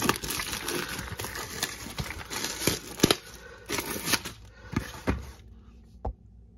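Cardboard product box being opened and handled on a countertop: rustling and scraping of the cardboard with several sharp knocks, the loudest about three seconds in, dying down near the end.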